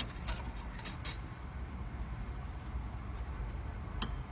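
Light metallic clinks from a Ruffatti pipe organ's metal reed pipes being handled at their tuning wires: a sharp one at the start, two about a second in, and one more near the end.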